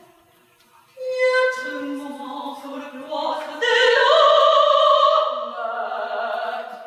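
A woman singing long held notes in a contemporary classical vocal piece. She starts about a second in, is loudest around the middle, and fades near the end.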